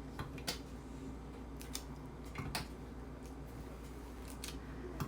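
Faint, scattered clicks and light taps of kitchen handling, a few in all, over a steady low hum.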